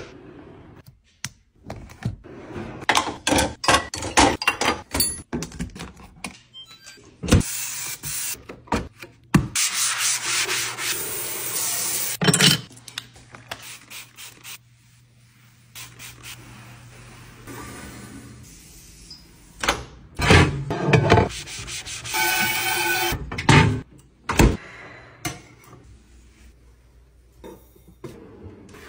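Household cleaning and tidying sounds: hands rubbing and wiping surfaces, many clicks and knocks of objects being handled, and several stretches of hiss.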